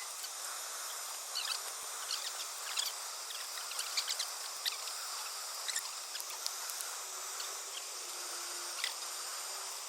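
Outdoor ambience: a steady hiss with scattered short, high chirps or ticks every second or so, and a faint low hum coming in near the end.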